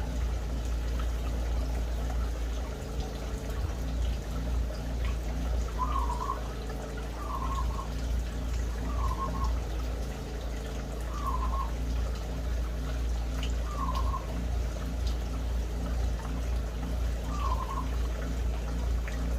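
A small aviary bird giving short, wavering calls, one every second or two from about six seconds in, over a steady rushing noise with a low hum.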